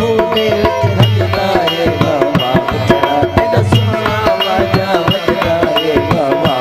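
Live Sindhi folk music: an instrumental passage, a melody line over a steady tabla-type hand-drum rhythm.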